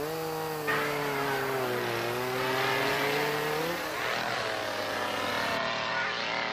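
Two-stroke chainsaw engine running at high revs, its pitch sagging a little and then climbing back. About four seconds in the strong steady note gives way to a weaker, rougher engine sound.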